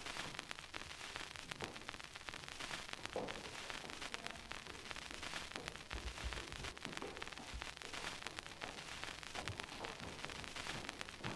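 Soft footsteps going down carpeted stairs, a few dull low thumps over a steady hiss, with scattered light clicks.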